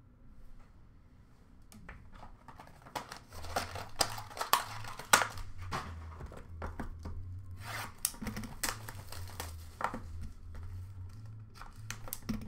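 Plastic shrink-wrap being torn and crinkled off a sealed box of hockey cards: irregular quick crackles and rustles that start about two seconds in and come in bursts.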